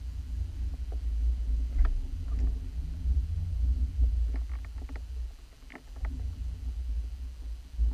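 Low rumble of water moving around an underwater camera, with scattered faint clicks and ticks.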